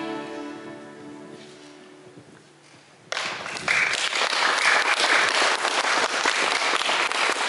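The last chord of a choir song with keyboard fades away in a reverberant church, then about three seconds in the audience suddenly breaks into steady applause.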